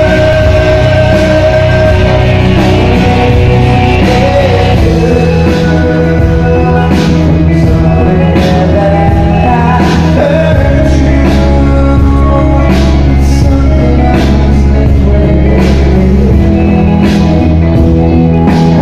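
Loud rock music with a male voice singing into a microphone through the PA. Sustained bass notes run under it, and regular drum and cymbal hits come in after a few seconds.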